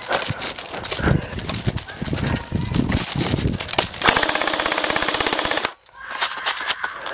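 Thumps and rustling, then about four seconds in a full-auto burst from an electric airsoft rifle: a rapid, even rattle lasting under two seconds that cuts off suddenly.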